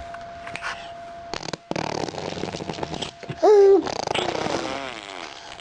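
Babies blowing raspberries: wet lip-buzzing sputters, with a short, loud high squeal about halfway through and a falling baby vocal just after it.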